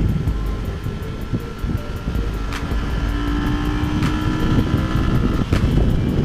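Motorcycle riding at speed, its engine running under a heavy low rumble of wind on the onboard camera's microphone.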